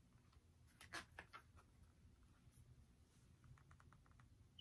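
Near silence with faint handling sounds of a Louis Vuitton French wallet in coated canvas being opened: a couple of soft clicks about a second in and a few light ticks near the end.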